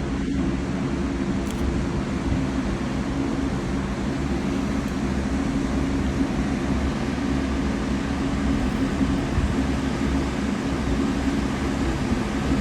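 Ropeway cabin running along its cable: a steady low mechanical hum over an even rushing noise, unchanging throughout.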